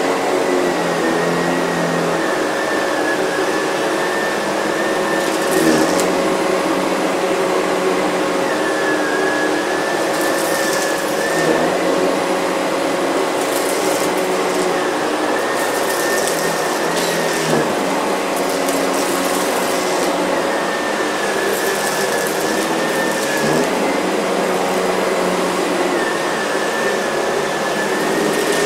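Miele C3 canister vacuum running steadily as it is pushed back and forth over a rug. Its motor whine wavers and dips slightly every few seconds with the strokes, with a brushing hiss on some passes.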